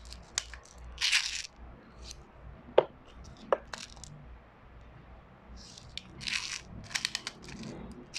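Plastic airsoft BBs clicking and rattling as they are pressed one at a time into a gas blowback pistol magazine, a scatter of small sharp clicks with a few short bursts of hiss between them.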